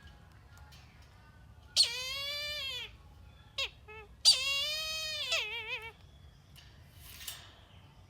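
Kite calling twice, loudly, each call about a second long and falling in pitch at the end; the second call ends in a wavering trill. A few short clipped notes come between the two calls.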